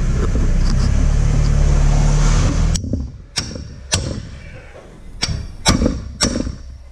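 A steady loud machine hum cuts off abruptly about three seconds in, and then a hammer strikes a steel socket six times with sharp metallic rings. The blows drive a socket into the grease-packed spigot bearing in the crankshaft, so the grease pressure forces the old bearing out.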